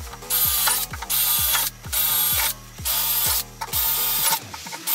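Cordless drill with a 3/16-inch bit boring through the aluminium rack foot and snowmobile tunnel in short bursts, each about half a second, roughly one a second. Background music with a steady beat runs underneath.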